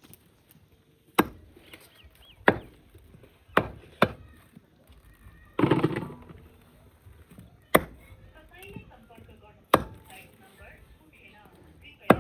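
Chopping on a wooden board: about seven single sharp strokes at uneven intervals, with a longer, louder burst of noise about halfway through.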